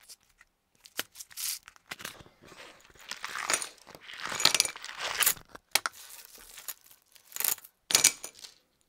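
Aluminium dog tags in small plastic bags, with bead chains, tipped out of a cardboard box and handled: irregular crinkling of plastic and scraping of cardboard, mixed with light metallic clinks and jingles of tags and chains.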